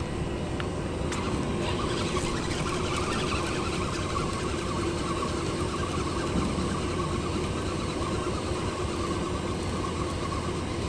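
A steady engine drone: a low rumble with an even hum that does not change.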